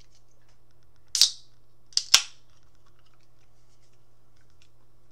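Aluminium energy-drink can being opened by its pull tab: one sharp crack about a second in, then two quick sharp clicks close together about a second later.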